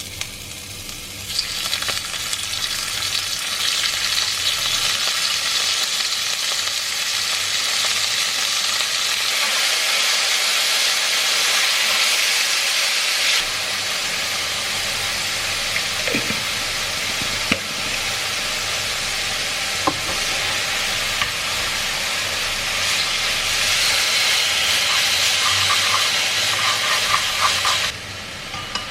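Food frying in hot oil in a pan, a steady sizzle, with a few brief knocks partway through.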